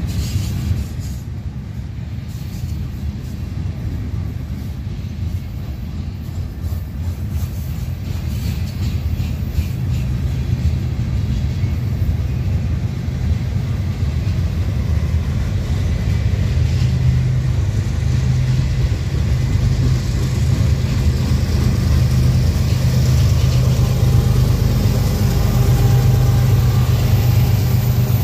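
Union Pacific manifest freight train passing at close range: a steady low rumble of rolling cars that grows louder through the second half, with a low drone strengthening from about halfway in.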